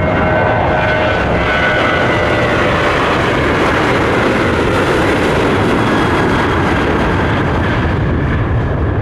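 Boeing 737-800's twin CFM56-7B turbofan engines running loud at takeoff power, a steady jet roar with a high whine that is strongest in the first few seconds.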